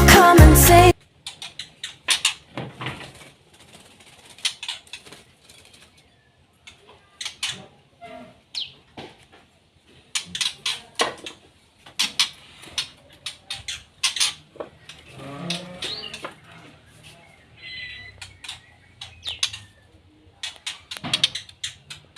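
Caged songbirds moving about their cages: scattered sharp taps and flutters of wings and feet, with a few short chirps near the end. A song plays for about the first second.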